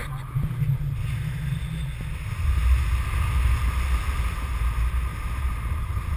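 Airflow buffeting the camera microphone in paragliding flight: a steady low rumble with a faint hiss above it, swelling a little about two seconds in.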